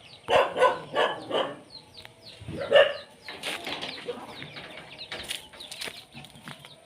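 Chickens clucking in a quick run of short calls, with another call a little under three seconds in, amid wing flaps and rustling.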